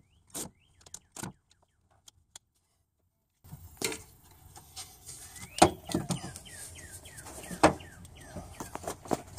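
A few light clicks, then irregular metal knocks, scrapes and short squeaks as a replacement starter motor is worked into its mounting position against the engine. Two loud clunks come in the second half.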